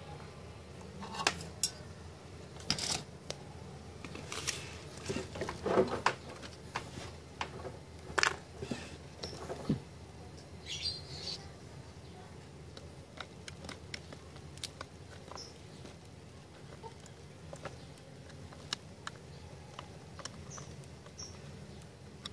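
Irregular clicks, taps and light knocks of an amplifier circuit board and tools being handled, louder and more frequent in the first half, then sparse faint ticks.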